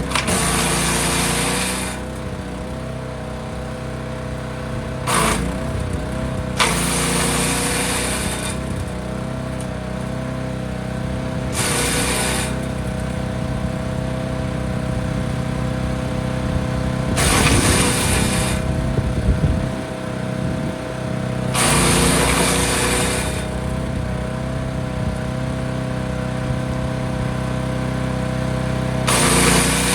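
Forest Master FM8DD wood chipper running steadily, with about seven bursts of a second or two each as branches are fed in, chipped and blown out. The engine note dips slightly under the load of some of them.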